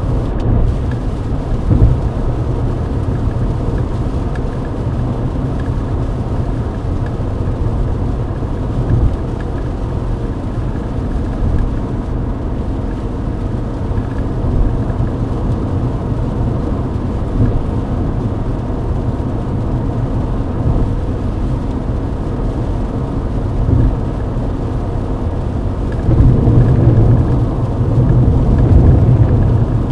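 A Mercedes-Benz W124 at highway speed on a wet road: a steady low rumble of tyres and engine with a hiss of spray and rain, growing louder for a few seconds near the end.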